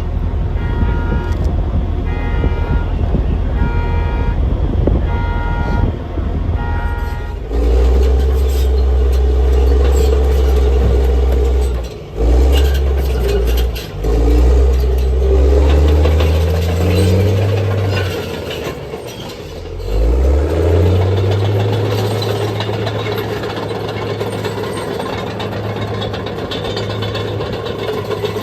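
Rhythmic beeping, about once a second, for the first seven seconds. Then the bulldozer's heavy diesel engine runs hard under load, dipping and revving back up several times as it pushes abandoned cars.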